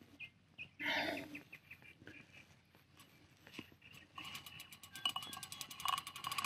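A few faint short chirps early on, then from about four seconds in the rapid, evenly spaced ticking of a fishing reel with a light whine, as line moves on the reel while a heavy fish is being played.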